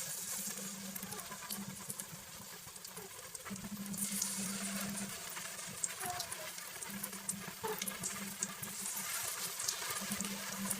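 Vegetable fritters frying in hot oil: a steady sizzle with scattered crackles and pops.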